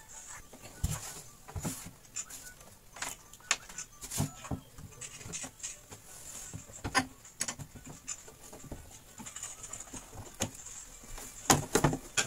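Plastic back cabinet of a Sharp slim 21-inch CRT television being handled and fitted back on, giving irregular clicks and knocks, with a quick cluster of louder knocks near the end.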